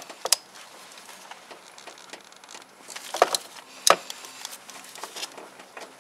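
Hand ratchet wrench clicking in a few short, sharp runs while tightening a spark plug: a brief cluster of clicks just past three seconds, then single clicks near four and five seconds.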